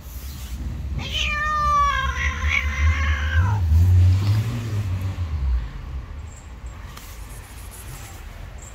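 Stray cat giving one long, drawn-out meow for about two and a half seconds, sinking slightly in pitch, starting about a second in. Just after, a low rumble on the microphone, the loudest sound, as a cat brushes past the camera.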